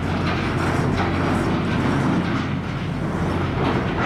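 Small cargo ship under way: a steady low engine drone beneath a constant rush of wind and water along the hull.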